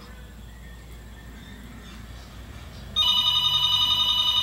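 Telephone ringing with an electronic trilling ring. The room is quiet for about three seconds, then the next ring starts loudly and runs on past the end.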